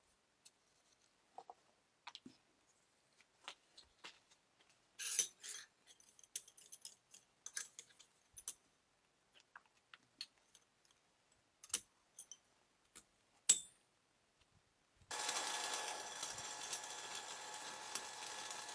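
Scattered light metallic clinks and taps of thin steel plates being handled on an anvil, then, about 15 seconds in, the steady crackle and hiss of an electric stick welder running a bead along the seams of a stacked Damascus billet.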